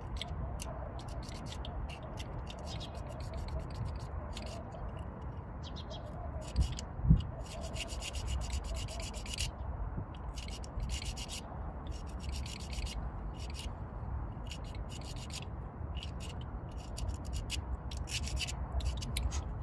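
Metal tools and engine parts being handled during spark plug and ignition coil work: irregular scraping and rubbing with many small clicks, and two knocks about seven seconds in, over a steady low rumble.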